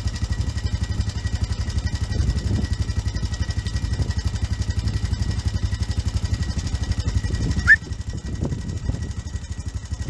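A quad bike's engine running with a fast, even low beat, easing back about eight seconds in. Just before it eases, there is one short, sharp rising whistle.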